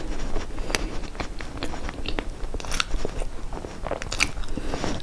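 A person chewing a mouthful of soft rolled pastry, with irregular wet mouth clicks and smacks.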